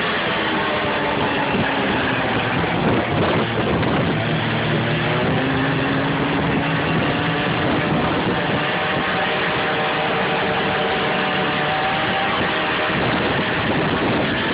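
Snowmobile engine running steadily under way, its pitch shifting up and down with the throttle over a constant rush of noise.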